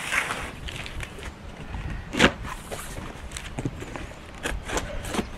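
Cardboard box being opened by hand: rustling of the flaps and plastic packing, with one sharp knock about two seconds in and a few lighter clicks near the end. Wind rumbles on the microphone underneath.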